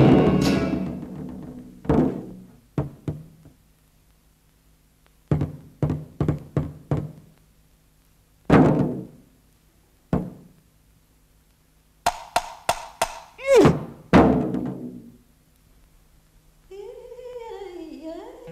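Cartoon sound effects of a drainpipe falling with figures on it: a loud crash at the start, then hollow thuds and knocks coming singly and in quick runs, one run with a short falling-pitch sound in it. Wavering humming or singing starts near the end.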